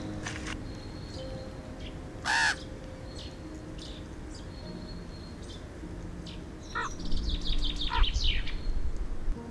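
A crow-like bird gives a single short caw about two seconds in. Near the end comes a quick run of high, falling chirps over a low rumble.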